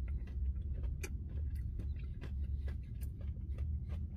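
Chewing with the mouth closed on ice cream with crunchy butterscotch candy crumbles: a run of small, irregular crunches and clicks, several a second. Under it runs a steady low hum inside the car.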